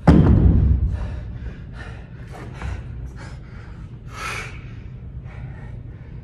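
A pair of heavy dumbbells set down hard on a rubber gym floor with a loud dull thud right at the start, fading over about a second. Then a man's heavy, gasping breaths from exertion, one sharper gasp about four seconds in.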